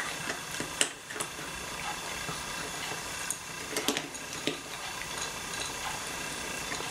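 Two cats eating from metal bowls: scattered small clicks and ticks over a steady hiss.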